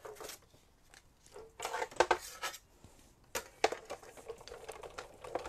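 Scattered light clicks, taps and paper rustling of die-cut cardstock and a thin metal cutting die being handled on a craft table, with a sharper click about two seconds in and another about three and a half seconds in.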